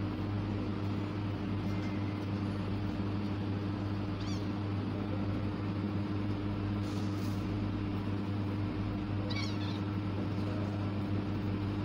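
Two short, high, wavering kitten mews, about four seconds in and again about nine and a half seconds in, over a steady low hum and hiss.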